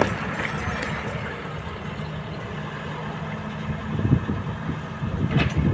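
Diesel engine running steadily, with a couple of louder knocks about four and five and a half seconds in.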